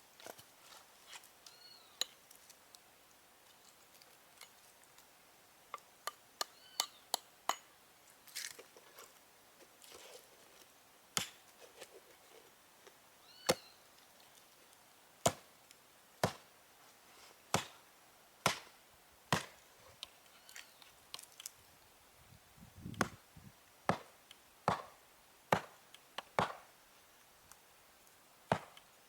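Wood being chopped: sharp knocks, a few scattered at first, then a steady stroke about once a second through the second half.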